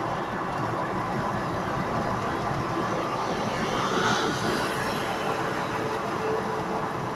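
Steady road and engine noise of a car driving at speed, heard from inside the cabin, with a brief swell of hiss about four seconds in.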